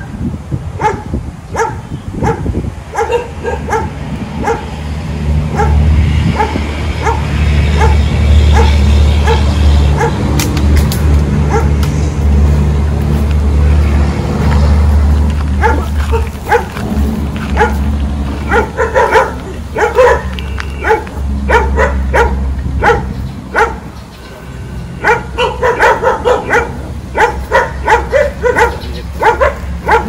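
Dogs barking and yipping over and over, the barks coming thickest in the second half, over a steady low rumble.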